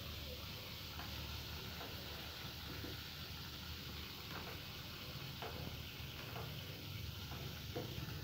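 Wild betel (lá lốt) leaf rolls of minced snake meat, on bamboo skewers, shallow-frying in a pan of hot oil: a steady sizzle with scattered small pops.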